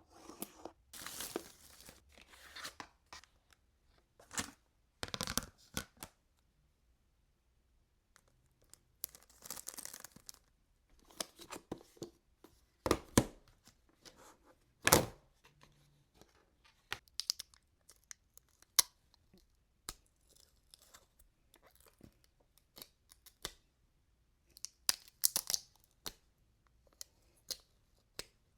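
Packaging of a Himi gouache paint set being torn open and handled: irregular tearing and crinkling, with scattered sharp clicks and knocks, the loudest about halfway through, and a pause of about two seconds early on.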